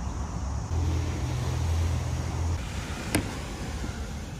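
A low steady hum, loudest in the first half, then a single sharp click about three seconds in.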